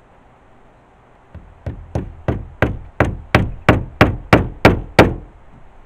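Hammer driving a nail through roofing felt into a wooden roof board: about a dozen even blows, roughly three a second, starting faint and growing louder, then stopping.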